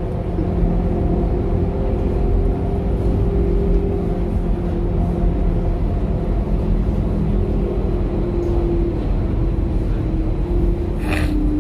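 Electric passenger train running: a steady rumble with a droning hum that slowly drops in pitch over the last few seconds. A brief hiss comes near the end.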